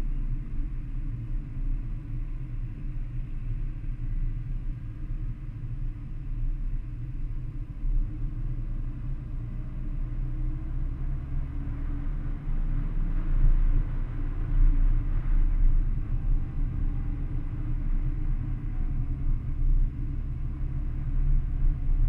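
Heavy wind noise on the microphone over a low road rumble from a Mercedes-AMG A45 driving along a rough mountain road, the engine and exhaust barely heard beneath it.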